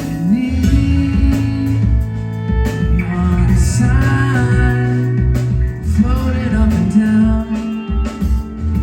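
Live rock band playing: drums and bass keep a steady beat under guitars, and a voice comes in singing about three seconds in.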